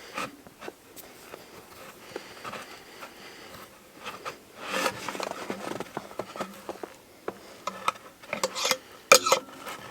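Hand-tool work on a wooden board: scattered clicks and knocks with scraping, busiest about five seconds in and again near the end, as a threaded ring is worked into a pilot hole in the 2x6.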